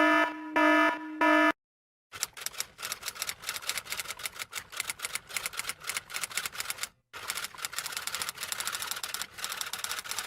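Typewriter typing sound effect: a fast, uneven run of sharp key clicks with one brief pause partway through. It is preceded at the start by three short buzzing beeps.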